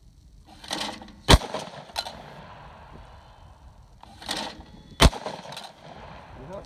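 Two shotgun shots about three and a half seconds apart, fired at thrown clay targets. Each sharp report comes just after a shorter rushing noise and is followed by a brief echo.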